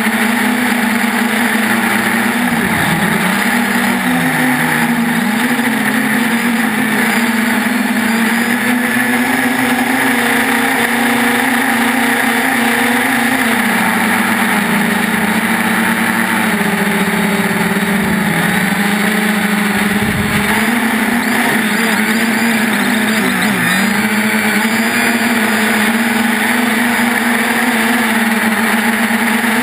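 3DR Iris+ quadcopter's brushless motors and propellers running in flight: a loud, steady buzzing hum whose pitch dips and recovers several times as the throttle changes.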